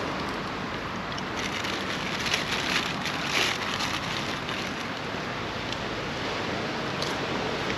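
Steady wash of sea waves on a beach, swelling for about two seconds near the middle.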